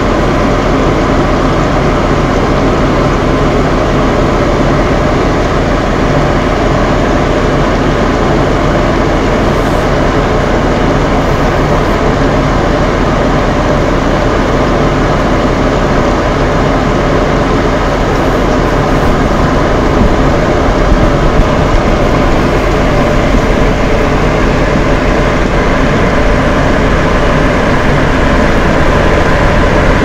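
Two bathroom fan heaters running together with a steady whirring hum, layered with rain, as one unbroken wash of noise.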